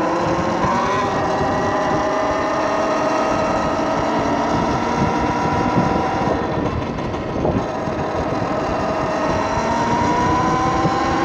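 Talaria Sting TL4000 electric dirt bike riding along, its motor and drivetrain whining in several tones that sink slowly in pitch through the first half and climb again near the end, over steady wind rumble on the microphone.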